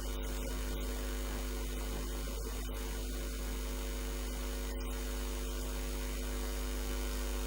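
Steady electrical mains hum, a low buzz with a ladder of overtones over faint hiss.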